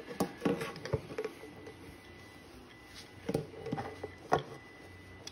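Hands handling and fitting a plastic replacement joint onto the spider's leg: a scatter of light clicks and knocks, irregularly spaced, with quieter handling in between.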